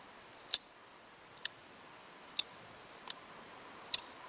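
Light handling clicks, about five short sharp ticks spread unevenly over four seconds, the loudest about half a second in, against a quiet room.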